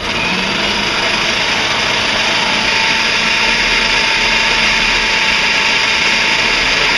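Electric food processor switched on and running steadily, its blade chopping a thick mixture of smoked king mackerel and mango toward a paste.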